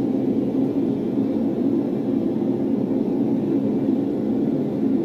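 Gas forge with venturi burners running, a steady low rushing noise as the forge heats up to temperature.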